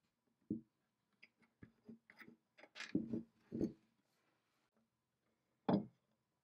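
Light clicks and knocks of small metal parts being handled on a wooden workbench while a hex key is fitted to a set screw, with the loudest knocks about three seconds in and again near the end.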